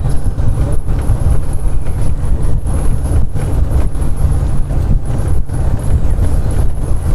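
Open Gypsy safari jeep driving along a rough dirt forest track: a heavy low rumble with constant irregular rattles and jolts as it bounces over the ruts.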